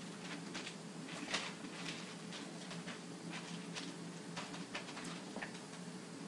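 Scattered soft clicks and rustles of supplies being handled, irregular and a few to the second, over a steady low hum.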